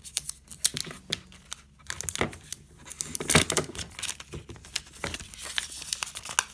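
Wrapping paper being torn and crumpled by hand as a phone is unwrapped: irregular crinkling and tearing crackles, loudest about three and a half seconds in.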